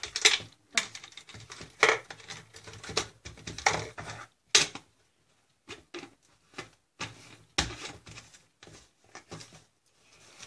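Plastic gel pens clattering against each other and a plastic jar as they are put back in by hand: irregular clicks and rattles with short pauses.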